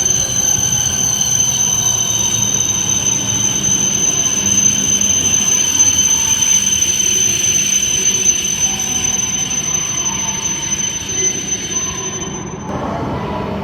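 A Tohoku Shinkansen train moving along the platform at Sendai Station, with a steady high-pitched whine over a loud rushing noise. The whine stops abruptly about a second before the end.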